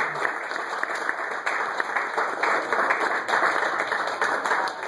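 A room of guests applauding: many hands clapping at once, steady throughout.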